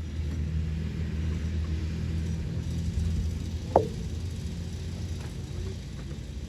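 Low rumble of a motor vehicle engine, swelling after the start and easing off in the second half, with one short sharp squeak a little past the middle.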